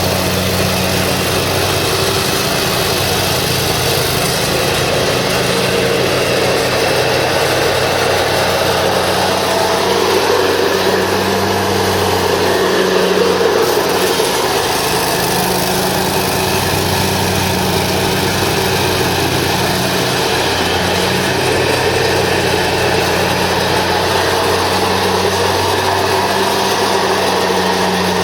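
The Kohler Command Pro 25 hp V-twin engine of a 2007 Exmark Lazer Z zero-turn mower running steadily, with small shifts in its pitch now and then.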